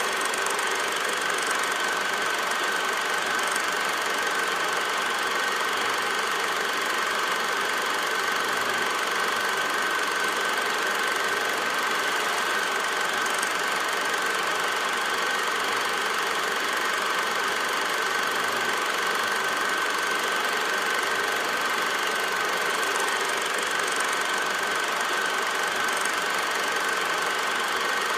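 Steady background noise of an old silent-film transfer: an even hiss with a constant thin high whine, unchanging throughout, with no other sound.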